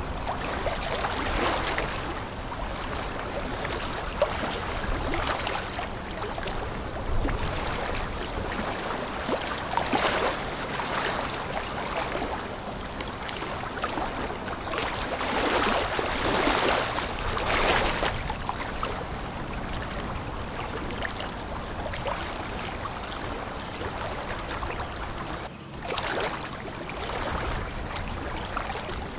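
Water rushing and splashing in the bow wave of a large container ship, coming in louder surges every few seconds, over a faint steady low hum.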